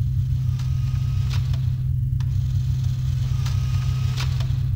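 Electronic demo soundtrack: a steady deep droning bass with a slight pulse, a few short hissy percussion hits and a faint high tone over it.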